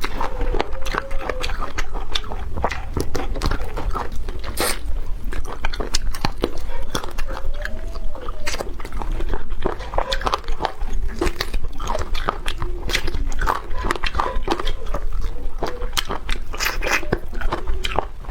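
Close-miked eating of Sichuan-pepper numbing chicken feet: a dense, irregular run of sharp clicks and crunches as the skin and cartilage are bitten and chewed. A faint wavering tone runs underneath.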